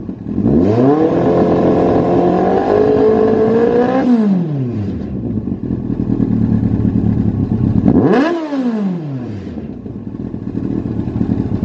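Yamaha FZS1000's inline-four engine through a Lextek OP1 aftermarket silencer, revved up and held high for about three seconds, then dropping back to idle. About eight seconds in it is given one quick rev blip that falls straight back to a steady idle.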